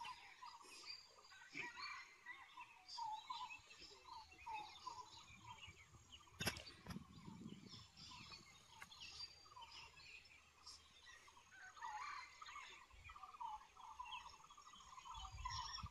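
Otters chattering: faint, repeated short chirping calls, in runs of several a second, with scattered clicks and one sharper click about six and a half seconds in.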